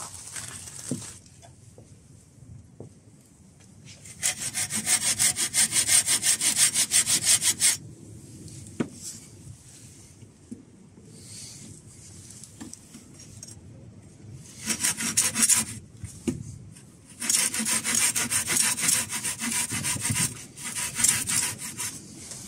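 Folding pruning saw cutting into a green wooden pole in quick, even strokes, cutting a notch. There are three bouts of sawing, the first starting about four seconds in, with short pauses between them.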